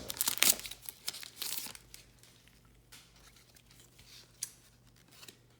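Plastic trading-card packaging crinkling and crackling as cards are handled, busiest in the first two seconds, then fainter rustles with an occasional click.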